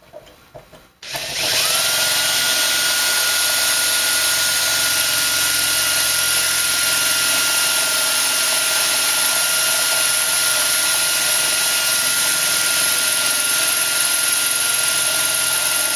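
Electric power tool motor spinning up about a second in and then running steadily with a constant high whine for about fifteen seconds before cutting off abruptly, used to remove the old pieces from a blower motor resistor.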